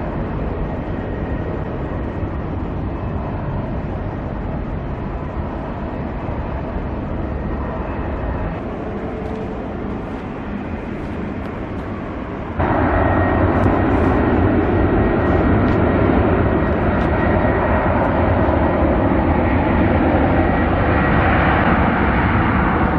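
Airbus A321-231's IAE V2500 turbofan jet engines taking off, a steady jet noise that suddenly gets louder about halfway through and holds there.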